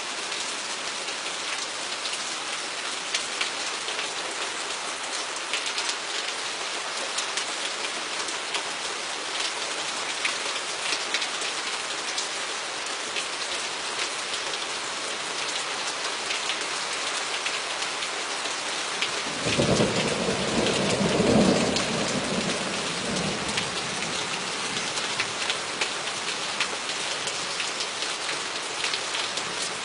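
Steady rain, with individual drops ticking close by. About twenty seconds in, a thunderclap breaks in and rumbles for a few seconds before fading back under the rain.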